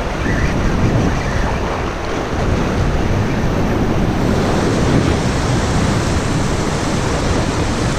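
Surf washing onto the shore, with wind buffeting the microphone in a steady rush of noise.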